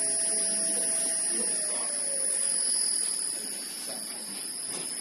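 Three-phase induction motor driven by a Shihlin SE2 variable-frequency drive, running with a steady high-pitched inverter whine and a motor tone that slides down in pitch as the drive slows it. The sound eases off after about three seconds.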